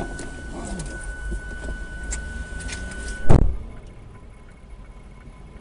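Low road rumble inside a moving car with a steady high tone, cut off by one loud thump a little over three seconds in; quieter running follows.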